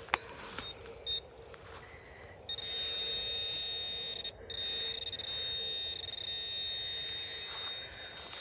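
Handheld metal-detecting pinpointer probing the loose soil of a freshly dug hole: a short high beep about a second in, then a steady high-pitched tone from about two and a half seconds in until near the end, broken once for a moment, as the probe sits over a metal target.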